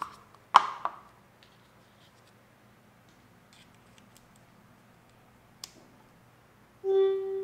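Unboxing and handling of the small Luna Display adapter: a sharp knock as the box is opened, then a few faint clicks as the adapter is plugged into a laptop port. Near the end a short steady tone sounds for about a second.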